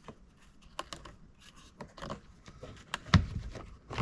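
Scattered plastic clicks and light knocks as a headlight switch is handled and worked back into its opening in the dashboard, with one louder thump about three seconds in.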